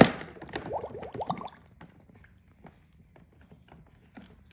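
A sudden splash into water, followed by about a second of bubbling and gurgling, then faint scattered drips and light taps.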